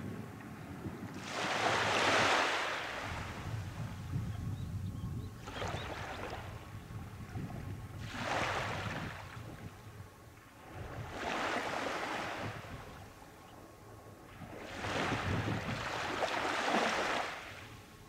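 Small waves breaking and washing up a sandy beach, five swells of surf a few seconds apart, the loudest about two seconds in and near the end.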